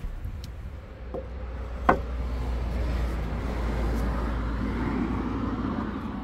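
A road vehicle passing by: a rushing sound that swells and then fades, over a low rumble. A single sharp click about two seconds in.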